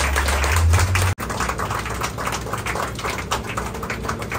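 A small group applauding by hand, a quick, uneven patter of many claps. The sound drops out for an instant about a second in, then the clapping continues.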